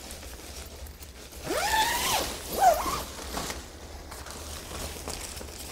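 Nylon tent rain fly rustling as it is handled and unfolded, with two short squeaks in the middle, about one and a half and two and a half seconds in.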